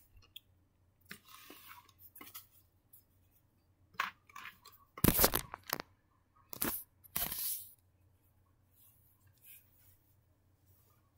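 Rustling, scraping and bumping as plush toys and the recording device are handled, in about four short, uneven bursts spread over the first seven seconds or so.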